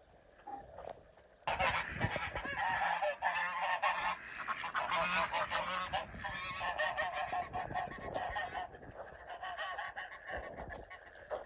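A flock of geese honking loudly together. The calling starts suddenly about a second and a half in and thins out near the end.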